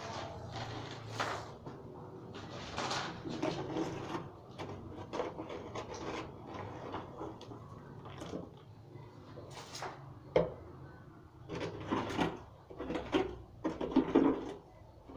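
Irregular scraping, rubbing and knocking of things being moved about while a dusty fireplace is cleaned out by hand, with a sharp knock about ten seconds in and louder scrapes near the end.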